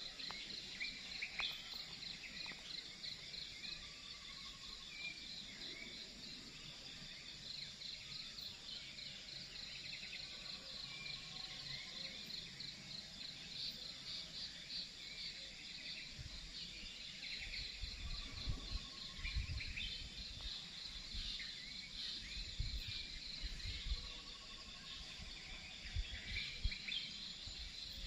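Insects, crickets among them, keep up a steady pulsing trill, with scattered bird chirps over it. Short low rumbling thumps come and go through the second half.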